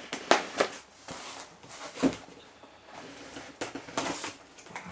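A knife cutting through the tape sealing a cardboard box: scattered scrapes and clicks as the blade slits the tape and card, with a few sharper knocks.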